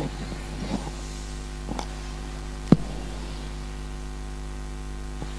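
Steady electrical hum and hiss from the public-address system between speakers, with a few soft knocks in the first two seconds and one sharp click about two and a half seconds in.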